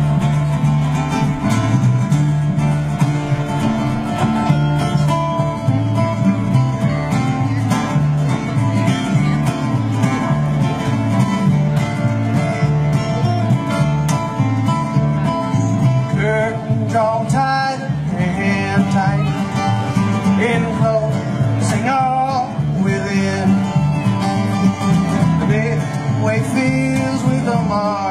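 A live acoustic bluegrass trio playing: two acoustic guitars strumming and picking over a plucked upright bass. A lead line that wavers and slides comes in about halfway through.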